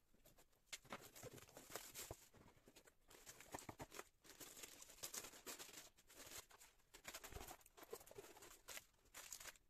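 Faint crinkling and rustling of plastic wrap and cardboard packaging being handled and opened, with scattered small clicks and crackles.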